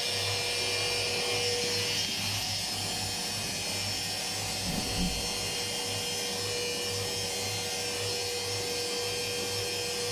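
Indesit WIUN82 front-loading washing machine on its spin cycle, the drum spinning at a constant speed with a steady motor whine over a low hum.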